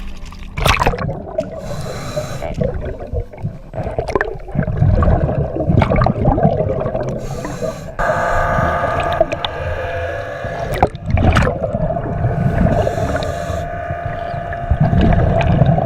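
Underwater sound through a GoPro: scuba regulator breathing, with bursts of hiss on the inhale and low rumbling bubble surges on the exhale. From about eight seconds in a steady humming tone joins.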